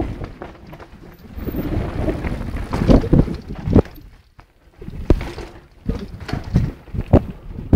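Wind buffeting the microphone over the rumble of a mountain bike riding down a rough dirt trail, with a few sharp knocks. There is a brief lull about four seconds in.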